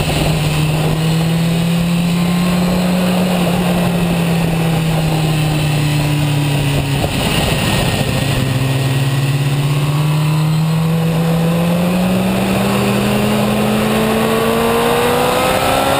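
Motorcycle engine on track, heard onboard with wind rushing over the microphone. The engine note eases down for the first seven seconds or so, breaks briefly, then climbs steadily as the bike accelerates out of the corner.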